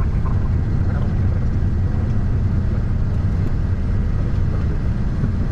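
Steady low rumble inside the cockpit of a Gulfstream G650 rolling out on the runway after landing.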